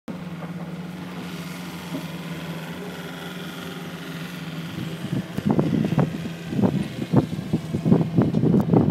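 Pickup truck engine running with a steady low drone, heard from the open truck bed. From about five seconds in, wind buffets the microphone in irregular gusts.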